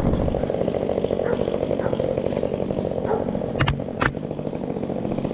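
Two-stroke Stihl chainsaw engine running steadily, with two sharp pops about three and a half and four seconds in.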